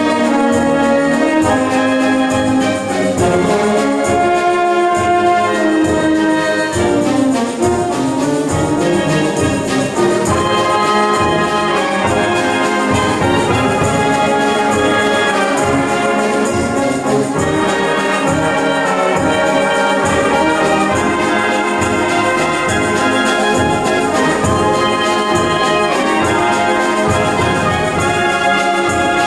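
Wind band of brass and clarinets playing a piece together under a conductor: trumpets, trombones and tubas sounding sustained chords over a steady low beat.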